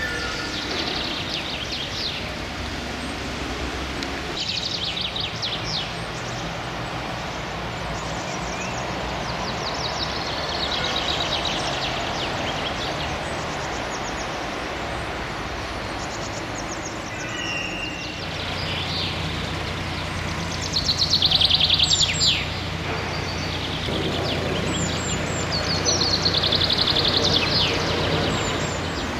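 Small birds singing in short repeated trills over the steady rush of a shallow stream. A construction machine's diesel engine joins about two-thirds of the way through, running steadily.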